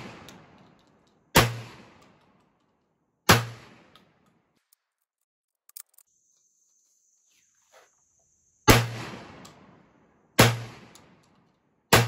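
Stoeger M3000 semi-automatic 12-gauge shotgun firing heavy hunting loads. Two shots come about two seconds apart, then a pause with a few faint clicks, then three more shots about a second and a half apart, each shot dying away quickly.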